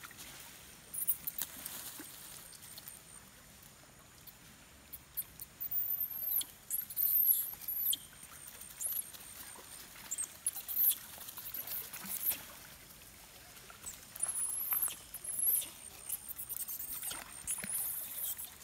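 Shallow stream water splashing and sloshing in irregular bursts as long-tailed macaques wade and swim through it. Brief high-pitched squeaks come through the middle stretch.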